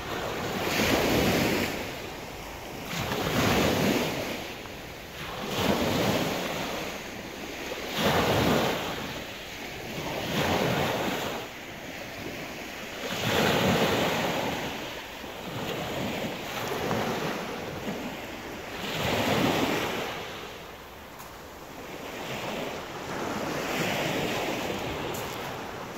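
Small Mediterranean waves breaking and washing up a pebble beach, rising and falling in a surge every two to three seconds.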